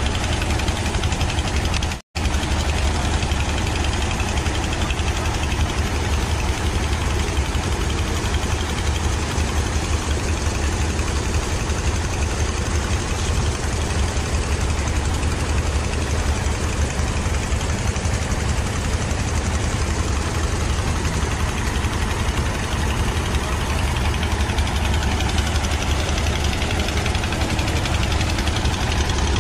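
An engine runs steadily with a low, even drone. The sound cuts out for a moment about two seconds in.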